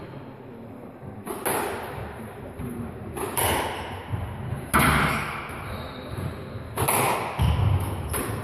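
Squash rally: a string of sharp hits as rackets strike the ball and the ball slaps the court walls, one about every one and a half to two seconds, the loudest about halfway through.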